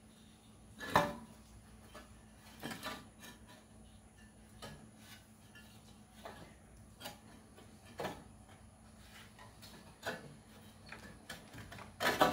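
Scattered light knocks and clicks as an old, hardened fan belt is worked by hand around the fan and pulley of a 1950 Farmall Cub, the belt and fan knocking against the metal parts. The sharpest knock comes about a second in, with a quick cluster near the end.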